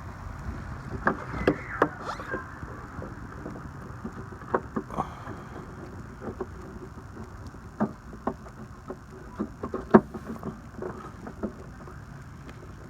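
Irregular clicks and knocks, the sound of things being handled, over a steady low rumble like wind on the microphone.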